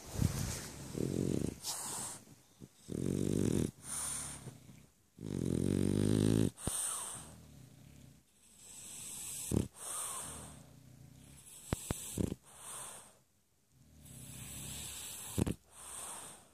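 French bulldog snoring: an irregular run of snores, the first few long and buzzing, later ones softer and breathier, with a few brief sharp breaths between them.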